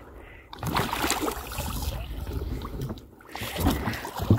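Water splashing and sloshing against a small boat's hull as two large fish, a coalfish and a cod, are gaffed at the surface and hauled aboard. The splashing starts about half a second in.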